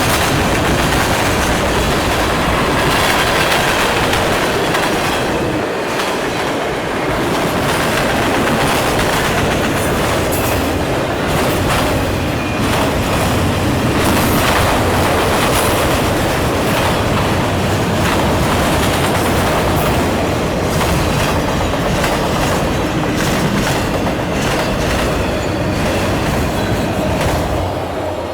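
Cars of a long freight train rolling past close by, the wheels clattering rhythmically over the rail joints; the sound drops away at the very end.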